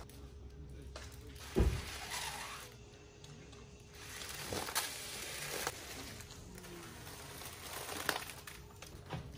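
Foil balloons crinkling as they are handled and unfolded, and breath being blown into a foil balloon to inflate it. A single thump about one and a half seconds in.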